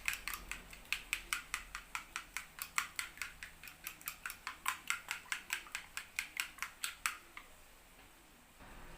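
Eggs being beaten in a bowl: a utensil clicking rapidly against the bowl at about five strokes a second, stopping about seven seconds in.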